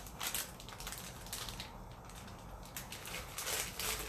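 Irregular light clicks and crackles of handling while brown sugar is sprinkled over a microwaved sweet potato, a few louder near the start and near the end.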